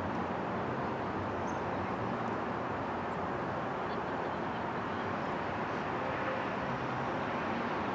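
Steady outdoor background noise, an even rumble with no strikes or voices, with a few faint, brief bird chirps scattered through.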